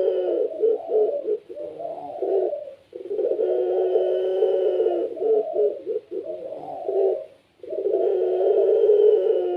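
Puter pelung, a Barbary dove kept as a songbird, cooing steadily. Each phrase is a long held coo followed by a few shorter notes, and the phrases repeat about every four and a half seconds.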